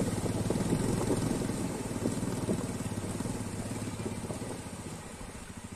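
Motorcycle engine running with a steady low pulsing beat that gradually grows fainter as the bike moves away.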